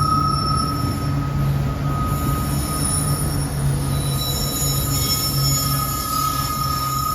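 Freight cars of a long CSX freight train rolling past: a steady low rumble with a steady high wheel squeal running over it.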